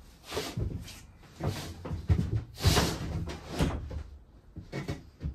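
Irregular wooden knocks, bumps and scraping as an MDF ceiling panel is pushed up against the curved roof battens and shifted into place by hand, the loudest knocks about halfway through.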